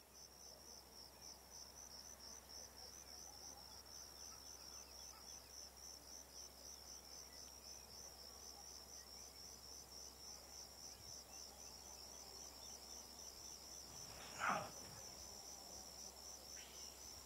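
Insects chirping faintly in a steady, rapidly pulsing high trill, with one brief louder sound about fourteen seconds in.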